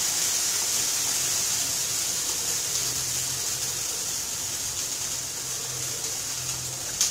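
Steady sizzling hiss of food cooking over gas burners: a ground tomato-and-spice rasam paste sautéing in oil in a steel wok while the pots beside it simmer. A short click comes right at the end.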